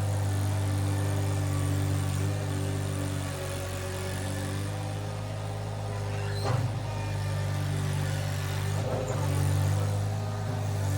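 Iron Rhino IR1200 mini skid steer's engine running steadily at work, its pitch and level shifting a little, with a sharp knock a little past halfway and a smaller one about two seconds later.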